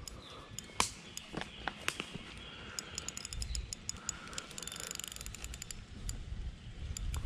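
Shimano Sahara spinning reel clicking as its handle is cranked, reeling line in against a heavy hooked turtle. Scattered sharp clicks, with a rapid, even run of clicks in the middle, over a low rumble.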